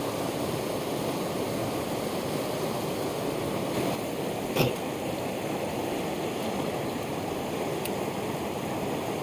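Fast mountain torrent rushing steadily over rocks, with a single short knock about halfway through.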